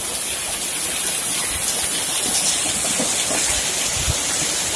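Heavy rain pouring down in a steady, dense hiss. A few soft low thumps sound through it.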